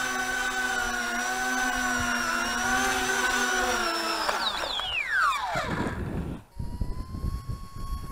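Battery-powered RC model plane's electric motor whining steadily at high throttle, then throttled back about four seconds in, its pitch falling away quickly. After that, low wind rumble on the microphone with a faint steady whine.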